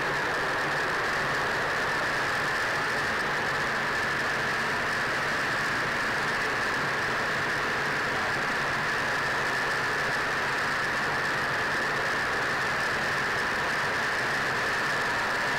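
A B-25 Mitchell's two Wright R-2600 radial engines droning steadily in cruise flight, mixed with airflow noise, heard from inside the glazed nose compartment.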